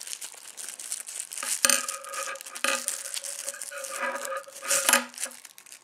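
Clear plastic packaging sleeve crinkling and tearing as a throwing knife is unwrapped by hand, with a few louder crackles.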